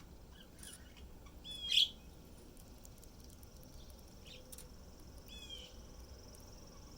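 Songbird chirps: a few short high calls, the loudest just under two seconds in and another about five and a half seconds in, with a faint steady high tone in the background.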